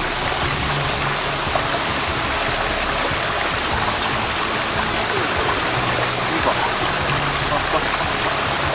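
A small shallow woodland stream running and trickling steadily, with one brief louder noise about six seconds in.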